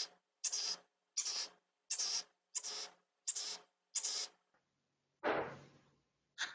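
A run of seven short, even scratching strokes about 0.7 s apart, then a longer scratch about five seconds in and two quick ones near the end.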